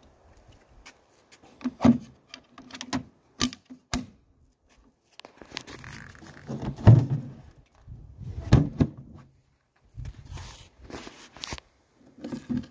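Hands handling a wooden fishing cart and the plastic cooler in it: a few sharp clicks, several dull thumps and knocks, and scraping near the end.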